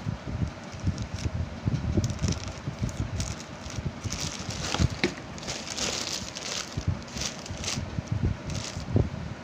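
Packaging being handled and unwrapped: irregular crinkling and rustling that gets busiest in the middle, with dull low thumps of handling close to the microphone.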